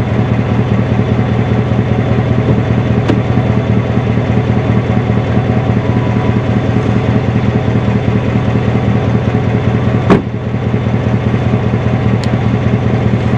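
GMC Yukon Denali's V8 idling steadily through a new, loud aftermarket exhaust. A car door shuts with a sharp knock about ten seconds in.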